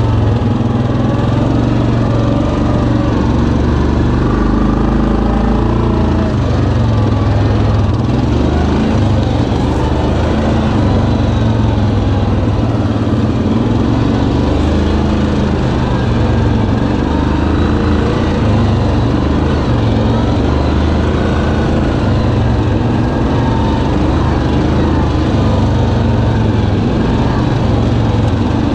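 Single-cylinder engine of a 2019 Yamaha Kodiak 700 EPS ATV running steadily under way, its pitch rising and falling gently as the throttle changes.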